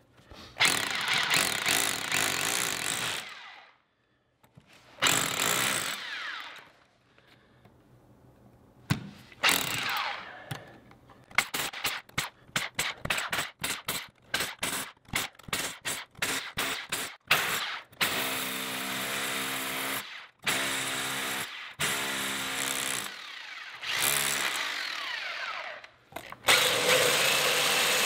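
DeWalt SDS-plus rotary hammer drilling into concrete in hammer mode with a masonry bit, run in many on-off bursts, from short stabs to runs of a few seconds: breaking out the slug of concrete left inside a partly cored hole.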